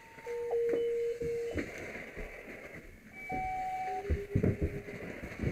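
Electronic beep tones sounding one after another at changing pitches, each held for about half a second to a second, in two groups: one near the start and one from about three seconds in. Knocks and clunks come around four seconds in.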